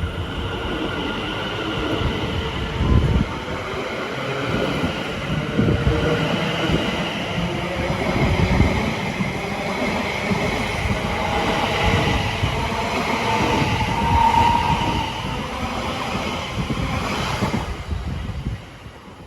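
A train passing at speed, with the steady rumble and rattle of its wheels on the rails. A brief higher squeal comes about fourteen seconds in. The sound drops away about a second before the end.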